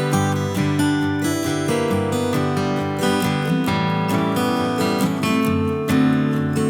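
Background music played on acoustic guitar, strummed chords with a steady rhythm.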